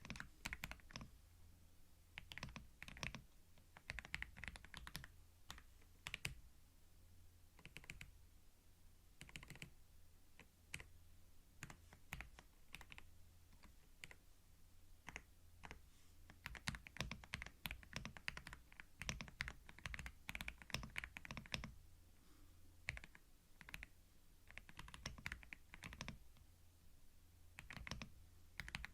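Typing on a computer keyboard: quick runs of key clicks broken by short pauses, recorded close on a binaural microphone, with a low steady hum underneath.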